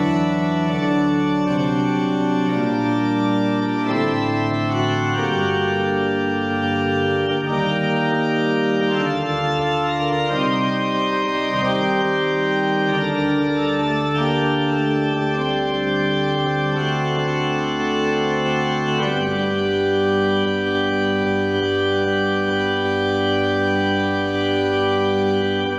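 Church organ playing slow, sustained full chords over a pedal bass line.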